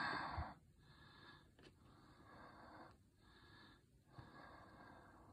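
Motor oil glugging slowly out of a plastic jug into an engine's oil filler neck, with faint airy pulses about once a second as air gulps back into the jug.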